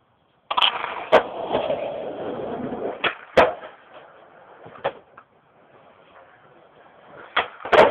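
Skateboard wheels rolling on concrete, broken by sharp clacks of the board hitting the ground during switch kickflip attempts, the loudest about three and a half seconds in. After a quieter stretch, another roll starts near the end with two more sharp clacks.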